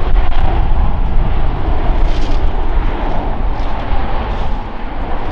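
Airbus A320 jet engine noise: a loud, steady rush with a heavy deep rumble, slowly fading.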